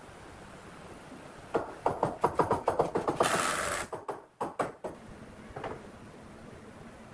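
Cordless drill/driver driving a screw into a pine cabinet frame: a fast rattle of sharp clicks for about two seconds, then a short hiss and a few knocks.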